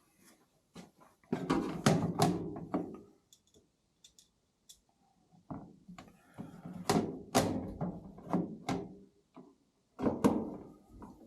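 Three bursts of sharp knocks and clunks, with quiet gaps between them, like something hard being handled or shut.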